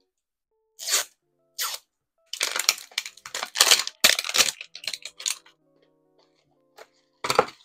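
Crinkly wrapper being torn and peeled off a Mini Verse plastic capsule ball, a run of crackling bursts with a last burst near the end as the clear capsule is handled open.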